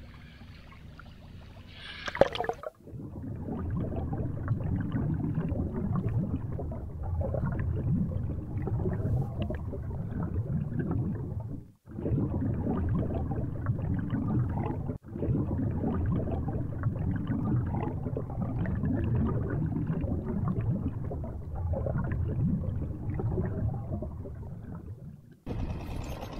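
Sea water heard through a submerged action camera: a dull, muffled churning and gurgling, with the high sounds cut away. A sharp splash about two seconds in as the camera goes under. The sound breaks off briefly twice near the middle.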